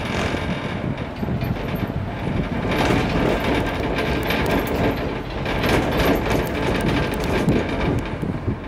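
Cable car cabin rumbling and rattling as it rolls out along the cable, with a steady clatter of small clicks and knocks.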